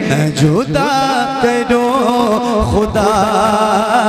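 Devotional naat music: a wordless melodic line with wavering pitch over a steady low note, with a rising glide about half a second in.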